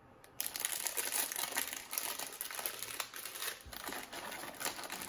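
Clear plastic parts bags crinkling and rustling as they are handled, starting about half a second in and going on with many small crackles.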